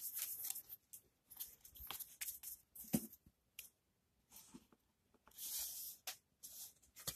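A stack of glossy chrome baseball cards handled and flipped through by hand: faint dry swishes and small clicks as the cards slide over one another, in irregular bursts with short pauses. There is a sharper soft knock about three seconds in.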